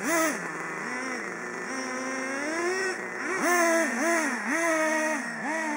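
Small nitro engines of radio-controlled cars, a Traxxas Revo 3.3 among them, revving up and down over and over as the throttle is blipped, each blip a quick rise and fall in pitch. The revving gets busier and louder from about halfway through.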